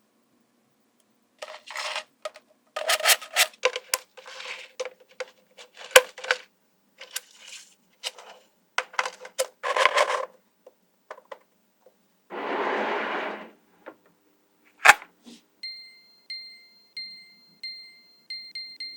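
Small magnetic balls clicking and clacking as they snap together and are handled, in irregular clusters of sharp clicks. A short hissing rattle comes about twelve seconds in, and a faint steady high tone with regular pulses runs near the end.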